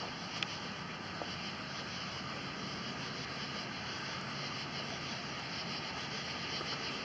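Night-time chorus of insects: steady high chirping with a regular pulse about three times a second, over a faint low distant rumble.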